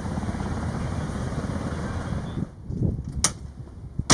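Loud steady drone of an aircraft turbine engine, stopping abruptly about two and a half seconds in. Then two sharp clicks under a second apart.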